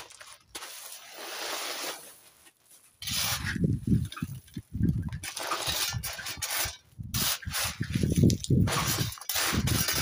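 A metal hand trowel scooping and spreading loose white gravel. A soft trickling hiss comes first, then from about three seconds in, irregular crunching and scraping of stones against the blade and each other.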